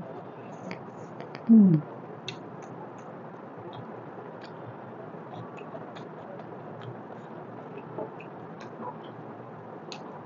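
Close-miked eating: small wet clicks and smacks of lips and teeth sucking and chewing on a curried mutton trotter held in the fingers. About one and a half seconds in, a brief loud hum of the voice drops in pitch.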